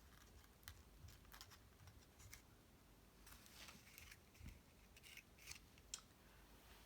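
Faint handling of cardstock pieces: scattered soft rustles and light clicks as cut-paper baby's breath sprigs are picked up and fitted into the pop-up card.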